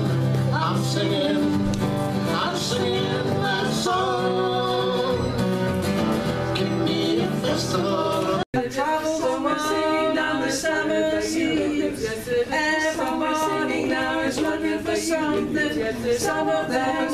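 Live music: an acoustic guitar strummed under a man and a woman singing, then an abrupt cut about halfway through to three women singing a cappella in harmony.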